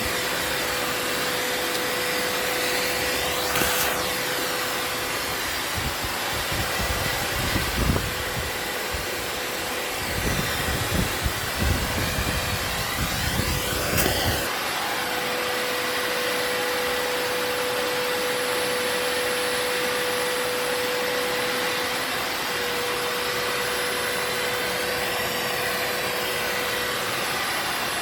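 Vacuum cleaner running steadily with a constant motor whine. From about six to fourteen seconds in, irregular low rumbling and knocks play over it.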